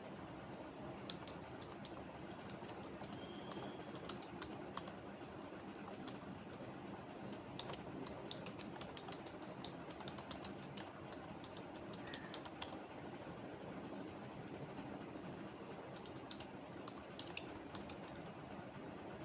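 Computer keyboard typing: keystroke clicks come in irregular runs with short pauses, over a steady faint background hum.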